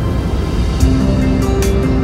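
Background music: sustained low notes, with drum and cymbal hits coming in a little under a second in, over a steady low rumble.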